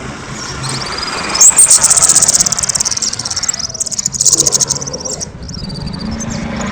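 Kemade songbird singing in rapid, high-pitched trills and chatter, loudest from about one and a half seconds in and again around four seconds in.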